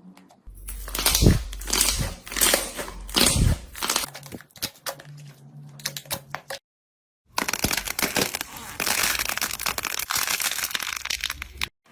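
Slime being squeezed and pressed by hand, making crackly, crunchy pops and squishes. The sound drops out completely for under a second about six and a half seconds in, then comes back as a denser run of fine crackling.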